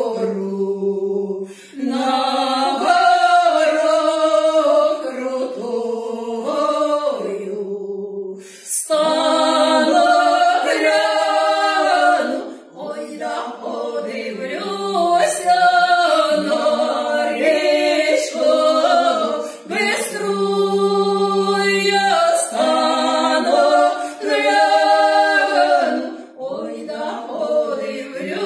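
Two women's voices singing a Ukrainian folk song together a cappella, in long sung phrases with short breath breaks between them.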